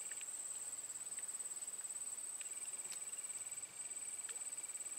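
Insects trilling steadily in the swamp: a high-pitched, fast, even pulsing trill, with a lower trill that stops and starts again about two seconds in, and a few faint ticks.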